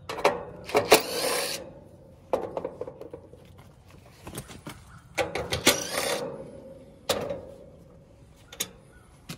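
Cordless drill-driver running in two short spurts of about a second each, backing out the screws that hold the condenser fan motor, with clicks and knocks of metal parts in between.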